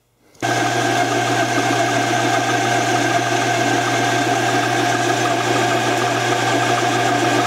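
Small metal lathe running steadily, its motor and gears giving an even hum with a higher whine, while the cutting tool turns down a rubber hockey puck. It starts about half a second in.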